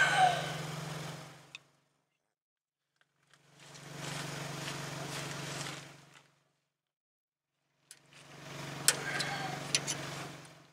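A few sharp metal clicks and taps from hand tools on the truck's front suspension, over a steady low mechanical hum with hiss. The sound comes as three short bursts cut apart by silence, and the clicks fall in the last one.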